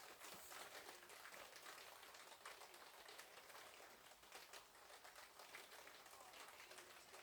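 Faint, gentle rain falling, with many small drops ticking irregularly on a patio.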